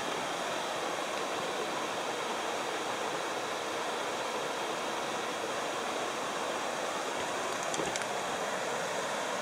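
A creek running over a small cascade waterfall: a steady, even rush of water.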